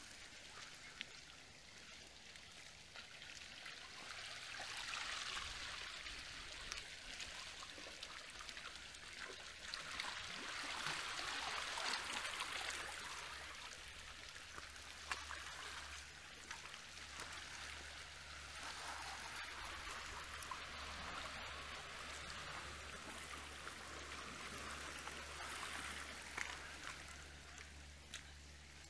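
Small waves washing and trickling over the rocks of the shore, swelling and fading every several seconds with little splashes and drips among the rocks. A faint steady low hum runs underneath from about halfway.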